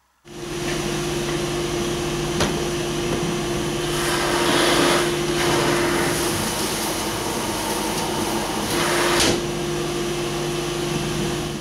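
Workshop dust extraction system running through a homemade cyclone separator: a steady rush of air with a motor hum. It switches on suddenly just after the start and cuts off near the end. The air noise swells around the middle and again briefly later while the suction holds the waste bin's lid tightly shut.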